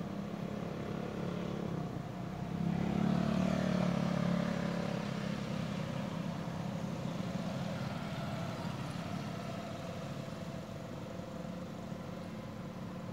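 Motor vehicle engine running with a steady low hum, growing louder about two and a half seconds in and then slowly fading.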